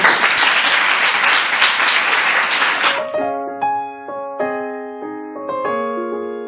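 A crowd clapping for about three seconds, cutting off suddenly, followed by slow piano music of single held notes.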